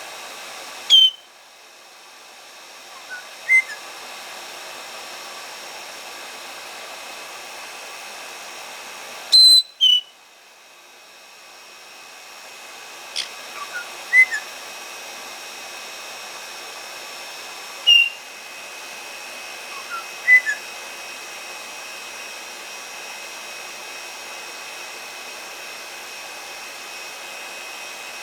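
A hair dryer blowing steadily while white-bellied caiques call over it. Three loud, shrill screeches come about eight seconds apart, each followed a few seconds later by a short pair of rising whistles. After about twenty seconds only the dryer is heard.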